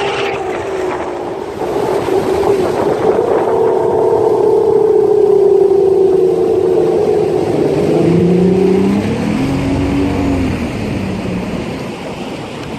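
Bass boat's outboard motor running at speed, its pitch steady, then dropping about eight seconds in as the throttle comes back and the boat slows.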